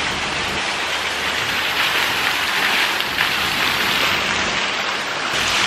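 Pool fountain splashing: a steady rush of falling water, a little louder in the middle.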